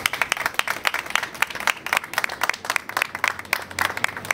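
A small crowd applauding: many quick overlapping hand claps, with a few sharper close ones standing out.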